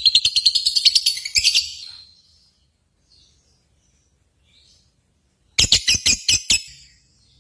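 Lovebird song in fast runs of high, rapid chirps, about eight a second. The first run fades out about two seconds in, and after a pause a second short burst comes about five and a half seconds in.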